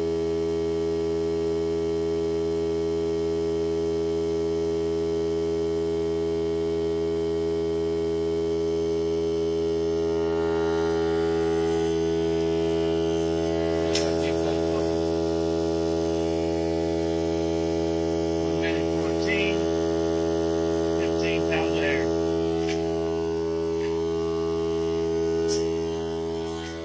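Hart 20-volt cordless 2-gallon air compressor running, a steady drone of even pitch, as it pumps air through a hose into a car tire: a slow fill that has reached only about 17 psi after 44 seconds. A few light clicks and knocks from handling come in the middle.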